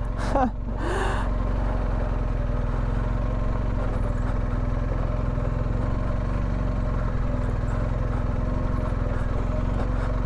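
BMW R1250GS boxer-twin motorcycle engine running steadily at an even, low engine speed.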